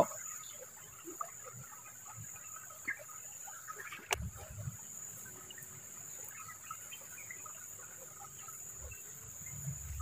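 Insects chirring steadily in the streamside vegetation, a thin high drone with scattered faint chirps. A single sharp click about four seconds in, followed by a brief low thump, and another low thump near the end.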